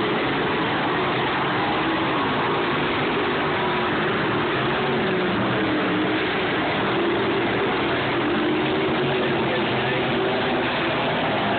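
Engines of several Sportsman dirt-track stock cars running as the cars lap the dirt oval, their pitch rising and falling as they go through the turns and pass by, over a steady din.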